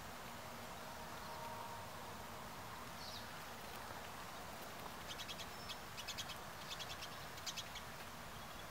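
Small songbird calling: a single short high chirp, then about halfway through a few seconds of rapid, dry twittering in short bursts, over a steady outdoor hiss.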